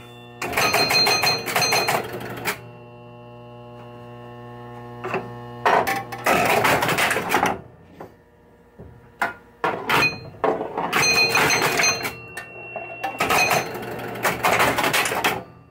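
1976 Williams Grand Prix electromechanical pinball machine scoring in several bursts: its rebuilt chime unit ringing over the rapid clatter of relays and stepping score reels, with a steady hum between bursts. The ringing shows the chimes are working again after the chime box rebuild.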